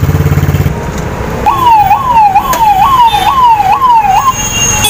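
A siren in street traffic, wailing up and down about twice a second for roughly three seconds from about a second and a half in, each cycle a quick rise and a slower fall. Before it, a vehicle engine rumbles low.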